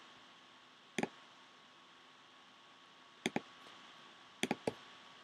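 Clicking at a computer: a single click about a second in, then quick double clicks a little after three seconds and again past four seconds, over faint room hiss.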